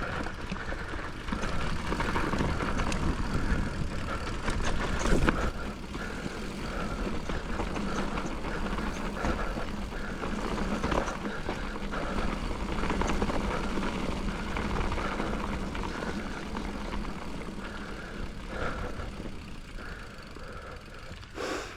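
Steady rumble of wind and trail noise on a mountain-biking microphone, as the bike moves over loose dirt, with a brief louder scrape about five seconds in.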